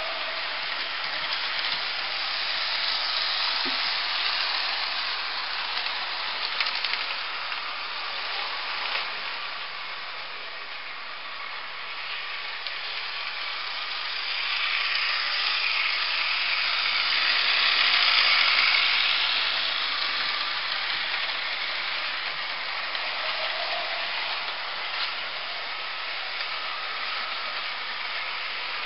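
Model railway trains running on the layout: a steady rushing noise of small wheels on the track and electric motors, growing louder about halfway through as a train passes close and then easing off.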